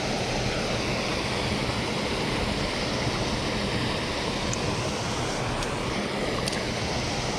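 Creek water rushing steadily over rocks in a riffle, a continuous even rush.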